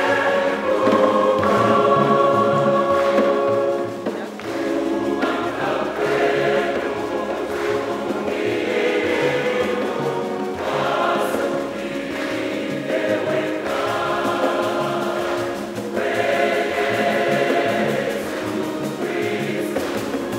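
Large church choir singing a Luganda hymn, many voices holding notes together and moving from phrase to phrase.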